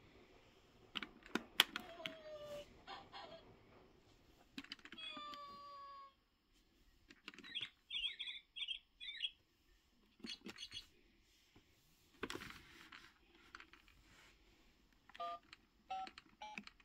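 A children's electronic activity toy being played with: plastic buttons clicking, short falling electronic tones and a brief chirping sound effect. Near the end the toy telephone's keypad beeps as its number keys are pressed.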